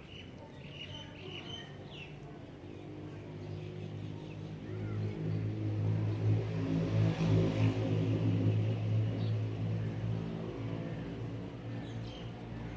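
A motor vehicle passes by. Its engine hum grows louder over several seconds and then fades. Birds chirp briefly near the start and again near the end.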